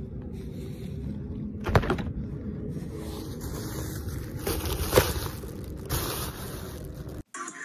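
Wind rumbling on a phone microphone at the beach, with the surf underneath and two louder scrapes of the phone being handled, about two seconds in and about five seconds in. It cuts off suddenly near the end and hip hop music starts.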